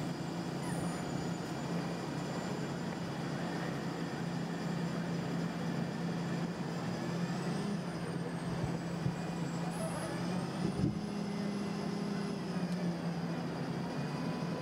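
Mud Dog 1200 hydro excavator's engine and Roots vacuum blower running with a steady, even drone, pulling vacuum through the dig tube. A faint high whine drifts up and down in pitch in the second half.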